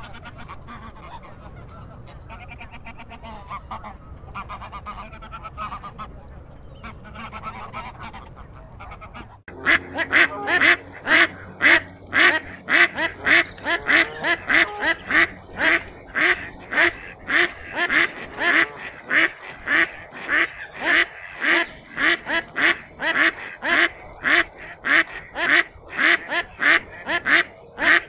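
Waterfowl calling quietly in a low chatter. About nine seconds in it changes abruptly to a duck quacking loudly and rapidly, about two quacks a second, in a long unbroken series.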